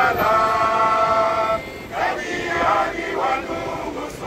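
A group of demonstrators singing a chant together: one long held note for about the first second and a half, then shorter notes that rise and fall.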